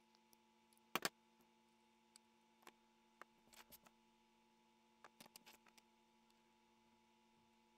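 Light clicks and taps of small plastic pieces being handled and pressed together, with a sharp double click about a second in and scattered softer clicks after. A faint steady hum sits underneath.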